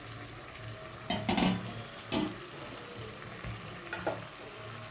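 Metal spatula stirring chicken, potatoes and capsicum in a metal wok over low sizzling, with a few short scrapes against the pan at about one, two and four seconds in.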